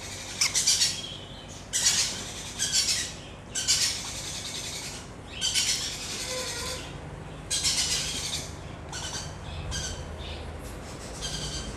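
Baby parrot chick calling: about a dozen harsh, raspy squawks at uneven intervals, the hoarse begging call of an unweaned chick around hand-feeding.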